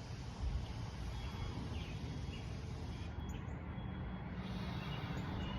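Outdoor morning ambience: birds chirping now and then over a steady low rumble.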